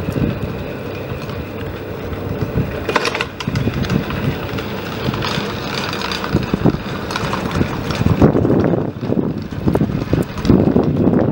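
Old aerial ore ropeway running: steel cables and wheeled ore-bucket carriages rolling, with a steady hum and scattered sharp clicks. Wind buffets the microphone with low gusts, loudest in the last few seconds.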